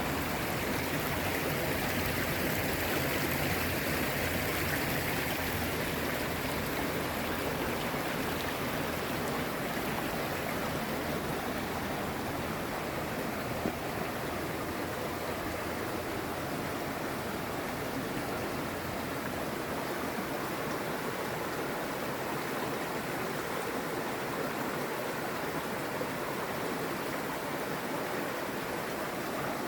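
Rushing water of a river and waterfall, a steady, even noise, with one brief click about halfway through.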